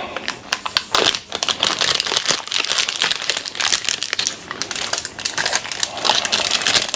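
Plastic wrapping around a printer ink cartridge crinkling and crackling as it is handled and pulled open, a dense run of small irregular crackles.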